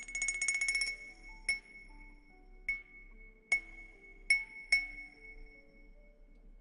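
A bright, glassy chime struck over and over at one pitch: a quick run of rapid strikes in the first second, then five single strikes, each left to ring. Underneath is a soft melody of low sustained notes.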